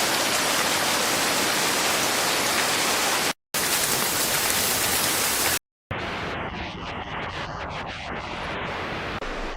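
Loud, steady rush of water, broken by two brief hard cuts; after the second cut the rush is quieter and more uneven.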